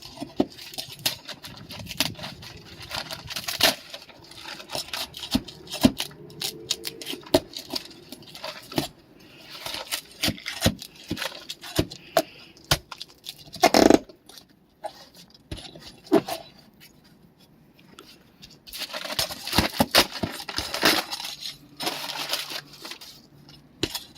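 A roofer working an asphalt shingle loose with hand tools: irregular clicks, taps and scraping, with one louder knock about halfway through.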